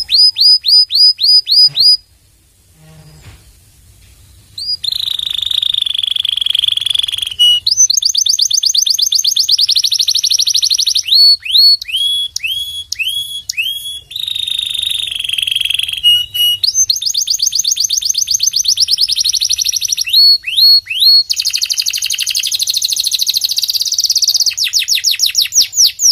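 Domestic canary singing loudly: series of rising notes a few per second, held rolling notes and fast trills, changing from phrase to phrase, with a pause of about three seconds after the first phrase.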